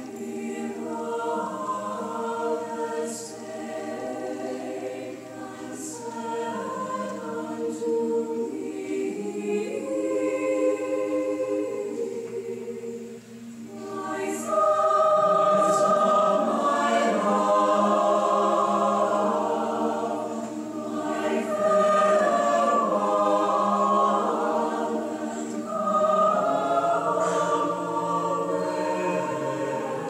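A choir singing sustained choral music, growing louder about halfway through.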